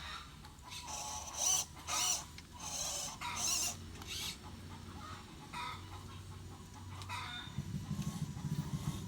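Animal calls, short and irregular, several a second in the first half and sparser later. A low, pulsing buzz comes in near the end.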